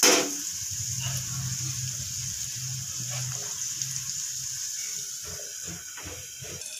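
Onion and spice masala with goat brains sizzling steadily in an aluminium kadai on the stove. There is a sharp metal clank right at the start, and a few light knocks near the end as a metal lid is set on the pan.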